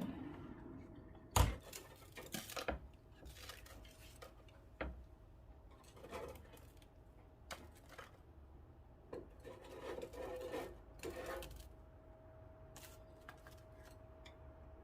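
Scattered light knocks, clicks and clatter of small hard objects being handled, with one sharper knock about a second in. A faint steady hum runs through the second half.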